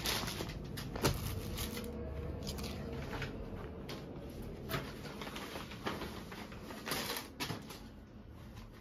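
Rustling of pashmina suit fabric and its plastic packing as the suit is unpacked and unfolded, with soft crinkles and light knocks scattered through at irregular moments.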